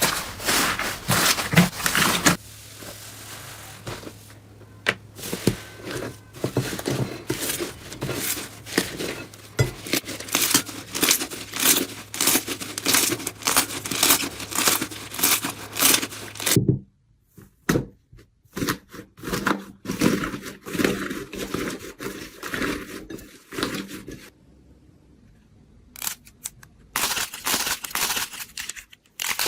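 Crinkling and tearing of a handled material, in quick irregular scratchy strokes, with two short pauses in the second half.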